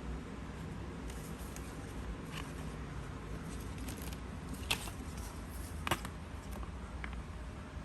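Paper being handled during craft work: soft rustles, then two short sharp clicks about a second apart, over a low steady hum.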